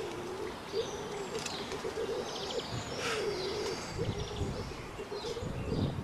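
Pigeons cooing in a repeated wavering low call, with small birds chirping higher over them.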